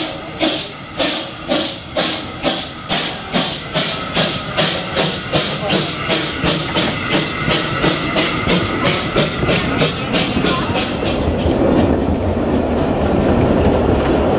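Narrow-gauge steam locomotive pulling away with a train, its exhaust chuffing in a regular beat that quickens from about two to about four beats a second as it gathers speed. Near the end the beats blur into a steady rumble and rattle of the train rolling on the rails.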